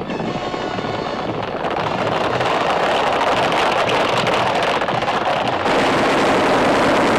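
Battle sound effects of rapid gunfire: a dense, continuous rattle of shots that grows louder over the first couple of seconds and steps up again near the end.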